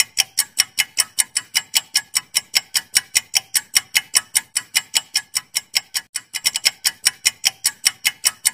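Ticking clock sound effect, a steady run of sharp, even ticks about three a second, marking a quiz countdown timer.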